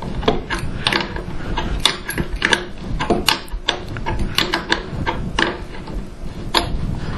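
Hand wrench tightening the bolts of a steel fence transition bracket clamped around a metal pole: a run of irregular metallic clicks and clacks, a few a second.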